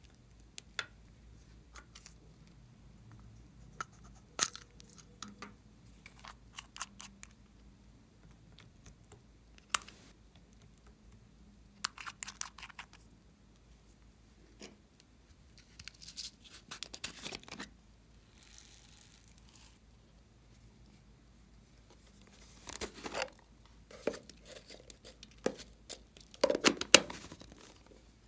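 Small plastic containers and toys being handled on a tabletop: scattered clicks and knocks, with a few short rustling, tearing-like stretches. The loudest comes near the end.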